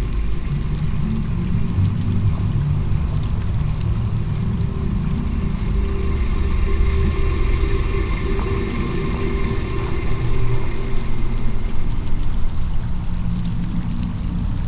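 Steady rush of running water, heavy and rumbling in the low end.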